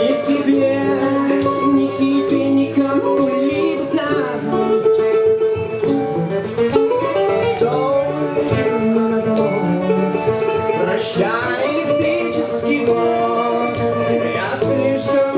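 A band playing the instrumental introduction to a song, led by guitar.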